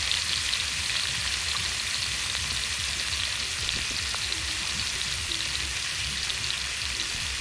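Chutney frying in oil in a cooking pan: a steady, crackling sizzle, with a low rumble underneath.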